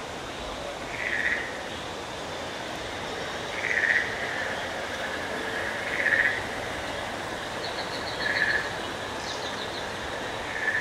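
A frog-like animal call repeating about every two seconds over a steady background hiss, with two short rapid chirping trills near the end.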